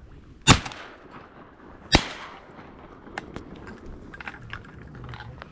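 Two shotgun shots at passing ducks, about a second and a half apart, each with a short echo, followed by a few faint clicks and rustles.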